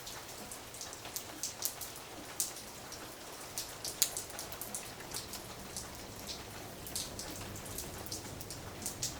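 Light rain falling: a steady soft hiss with many separate raindrops ticking on a surface, one louder drop about four seconds in.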